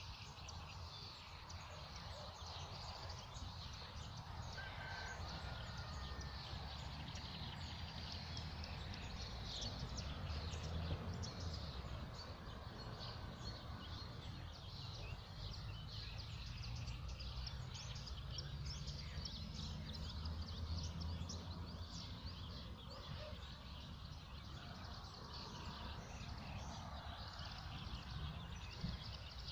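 Several wild birds singing and chirping, many short calls overlapping, over a steady low rumble.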